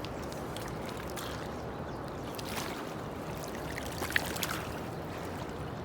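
Steady rush of flowing water, with a couple of faint clicks past the middle.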